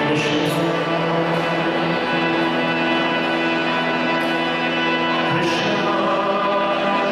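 Harmonium playing long held chords, with the chord changing about five seconds in, and a man's voice singing a kirtan. A few short, bright strikes sound over it, keeping time.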